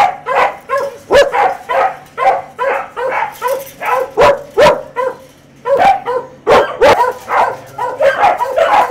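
Several shelter dogs in kennel runs barking at once, a steady run of overlapping barks at two or three a second.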